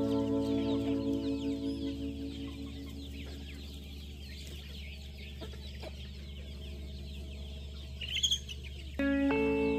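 Chickens clucking and chirping, with one louder squawk about eight seconds in. Background guitar music fades out at the start and comes back near the end.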